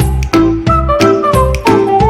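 Background music with a steady beat and a flute-like melody.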